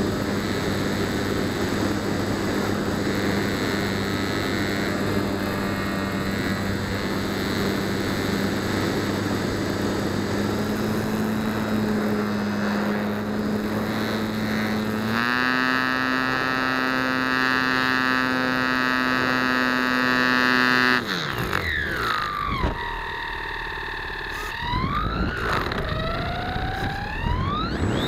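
Electric motor and propeller of a Flite Test Nutball foam RC plane in flight, heard from on board. A steady droning whine steps up a little in pitch about ten and again about fifteen seconds in. About twenty-one seconds in it drops sharply in pitch and loudness, then wavers in falling and rising whines before climbing back up near the end.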